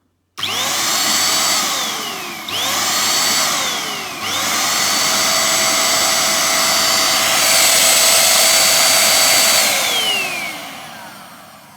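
A dodocool 2-in-1 corded vacuum cleaner's motor switched on and off. Twice it whines up to speed and spins down again, then it runs steadily for about five seconds before winding down. It is a bit noisy, which the owner puts down to its power.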